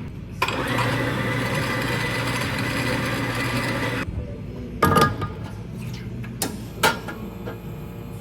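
A small electric motor, like a household appliance's, runs steadily for about three and a half seconds and stops suddenly, followed by two sharp knocks.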